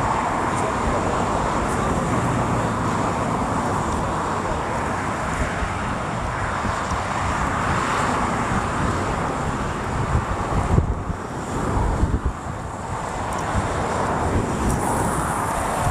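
Wind buffeting the microphone over a steady rushing roar, with stronger gusts about eleven and twelve seconds in.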